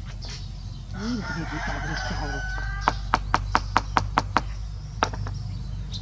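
A rooster crowing for about two seconds, then a quick run of about eight sharp taps, roughly five a second.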